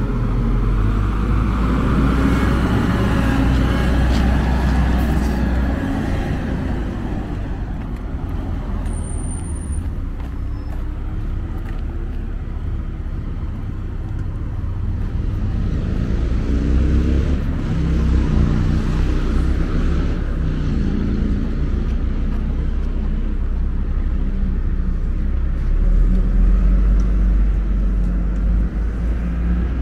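Road traffic: a city bus and cars driving past on a wide street, a steady rumble of engines and tyres, with a bus pulling away near the start.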